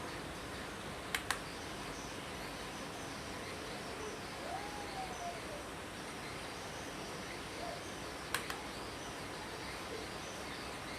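Two pairs of sharp clicks, about a second in and again about eight seconds in, each pair a quick double click like a blue-switch key on an Aula mechanical keyboard pressed and released. Under them runs a steady hiss of background noise with a few faint bird chirps.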